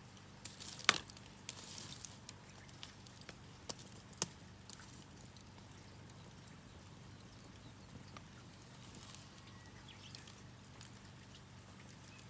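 Campfire crackling: scattered sharp pops, the loudest about a second in and another near four seconds, then fainter pops, over a low steady hum.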